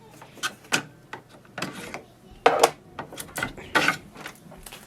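Plastic clicks and knocks from ink cartridges being pressed into the carriage of an HP OfficeJet Pro 9020 inkjet printer and springing out of their slots, one by one: half a dozen separate sharp clicks spread over a few seconds.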